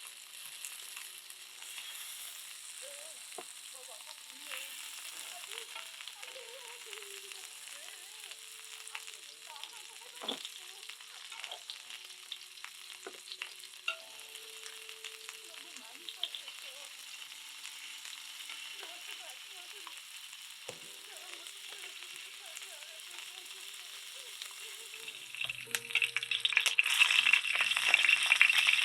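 Beef ribs sizzling as they fry on a hot pan, a steady hiss that becomes much louder about 25 seconds in.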